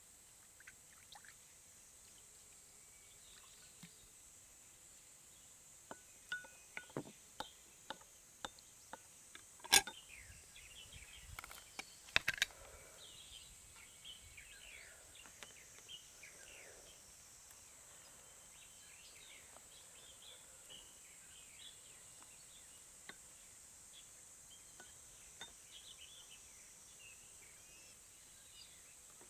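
Scattered sharp clicks and clinks of hard objects knocked together, a quick run of them from about six seconds in with the loudest near ten and twelve seconds, then fainter ticks. Underneath is a steady high insect buzz.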